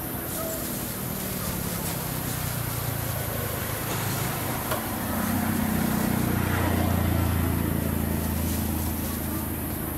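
A motor engine running steadily with a low hum, swelling about five seconds in and easing off near the end.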